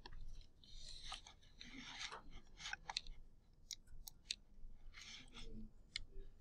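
Faint rustling and scraping, with a handful of short, sharp clicks.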